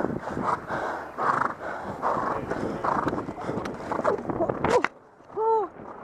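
Galloping horse under a rider: a rough, rhythmic beat of hooves and heavy breathing mixed with wind rush, which cuts off suddenly about five seconds in. A short high-pitched call follows near the end.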